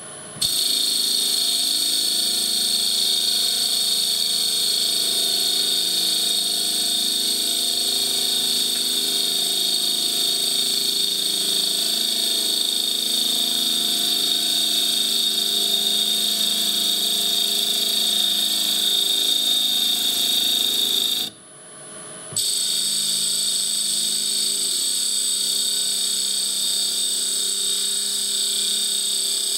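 CNC mill spinning Stone Hopea burl ring stock while a turning tool cuts its outer diameter: a steady, high machine whine with the hum of the spindle and the hiss of the cut. The sound breaks off briefly about 21 seconds in and picks up again.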